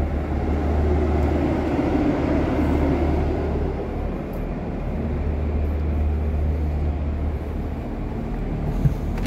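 Steady low hum of an idling diesel bus engine, heard inside the coach's cabin, with a noisy wash over it; the hum drops away a little before the end.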